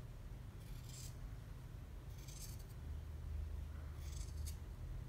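Scissors snipping through T-shirt fabric along the shoulder, three short rasping cuts about a second and a half apart, the last ending in a sharp click of the blades.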